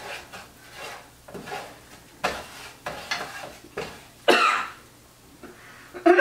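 A person coughing several times, the loudest cough about four seconds in, from garlic powder that got into her nose. A spatula stirs and scrapes in a skillet between the coughs.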